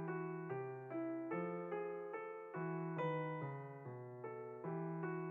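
Background music: a gentle piano (electric piano) playing a steady, evenly paced pattern of notes.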